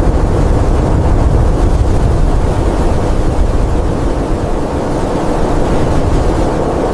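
Blizzard wind blowing hard: a steady, loud rush of noise, heaviest in the low rumble.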